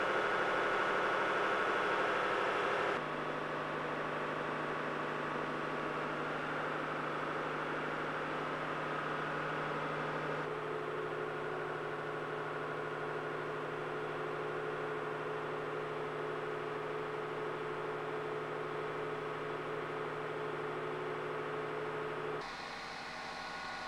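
Steady machine hum with hiss. Its tone and level shift abruptly three times as the recording cuts between shots.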